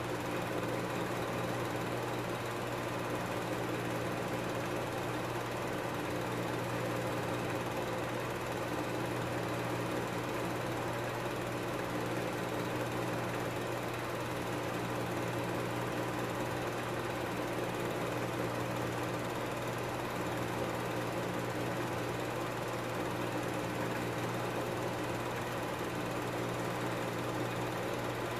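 Film projector running: a steady mechanical whir with a rapid, even clatter and a constant low hum.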